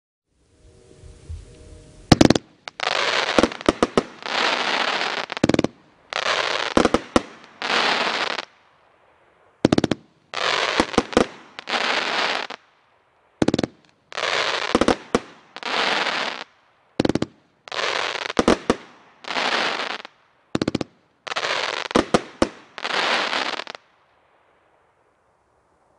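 Cutting Edge 'Final Cut' fireworks cake firing a long string of shots. Each shot is a sharp report followed by about a second of dense crackling, with short gaps between them, fading out near the end.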